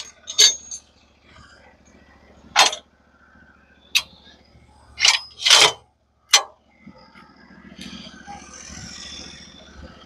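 Sharp metallic clanks and knocks, about six of them at irregular intervals, from the stops and fittings of a manual bandsaw mill being set. About eight seconds in, a steady low running sound comes up.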